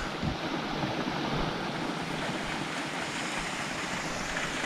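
Steady rush of a shallow stream running over rocks, with a soft low bump just after the start.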